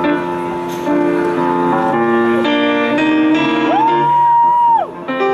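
Grand piano playing a slow blues accompaniment. Near the end a single high note slides up, is held for about a second, and falls away over the piano.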